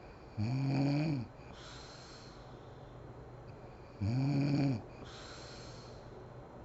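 A sleeping woman snoring: two low, voiced humming groans about three and a half seconds apart, each followed by a breathy hiss.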